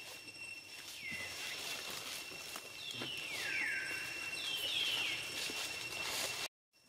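Three high animal calls, each sliding downward in pitch: one about a second in, a longer one around three seconds, and a third around four and a half seconds. A steady high whine and faint clicks run beneath them, and the sound cuts out abruptly near the end.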